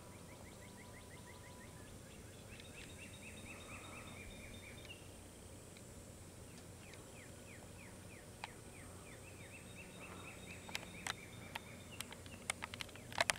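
A songbird singing faint rapid trills of short downslurred chirps, about eight a second, twice, each run lasting several seconds. A few sharp clicks near the end.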